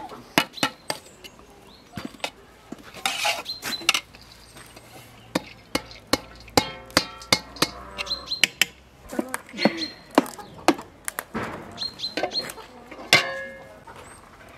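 Repeated metal clinks and knocks: a stainless steel colander and a metal ladle striking the rim and sides of a large cooking pot.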